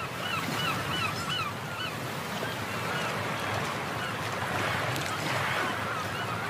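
Short, falling, bird-like calls, about three a second for the first two seconds or so and fainter later, over a steady rushing, surf-like noise.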